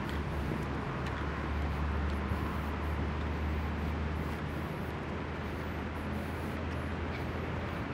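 Steady low rumble of city traffic, an even background drone with no distinct events.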